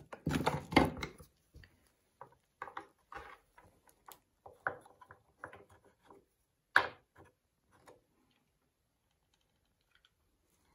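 Dry driftwood sticks clicking and knocking against each other and the tray as they are handled and shifted into place: a string of light knocks, with one louder knock a little under seven seconds in, dying away about eight seconds in.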